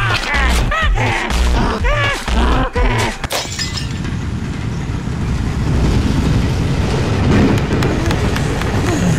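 Music with a heavy pulsing beat and voice-like cries, which stops about three seconds in and gives way to the steady rumble of a passing train.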